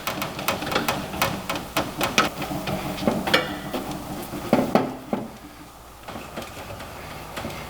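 Clay bar being rubbed over the painted sheet-metal toolbox, with irregular light clicks and knocks from the steel box as it is worked on. The clicks come about three or four a second and thin out for the last couple of seconds.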